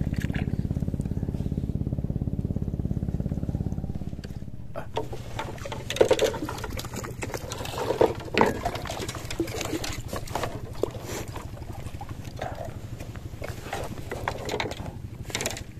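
A small boat engine running steadily, which drops away about four seconds in. Irregular knocks and clatter follow, with a few sharper knocks in the middle.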